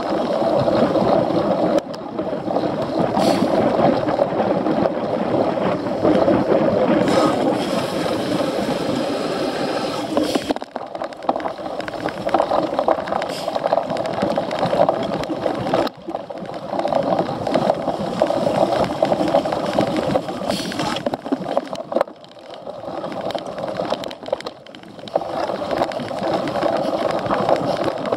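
Riding noise picked up by a cyclocross racer's onboard camera: a rushing mix of wind on the microphone and tyres rolling over the course, swelling and easing, with several brief dips.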